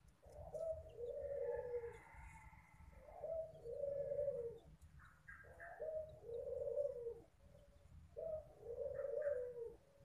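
A white domestic barbary dove (puter) cooing: four similar drawn-out coos, each about a second and a half long, repeated at an even pace. Faint short high squeaks come between some of the coos.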